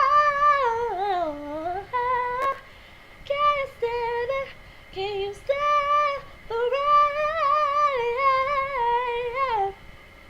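A woman's voice singing wordless, melismatic runs unaccompanied, in several phrases with short breaks, ending on a held note near the end, after which only faint hiss remains.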